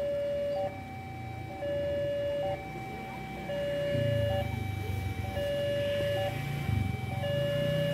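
Railway level-crossing warning alarm sounding its steady alternating two-tone signal, a lower and a higher tone of just under a second each. From about halfway in, the low rumble of the approaching diesel locomotive joins it.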